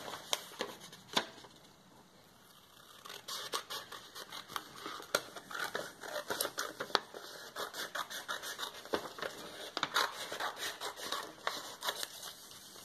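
Scissors cutting a strip off the top of a sheet of paper: a run of short snips with paper rustling, starting a couple of seconds in.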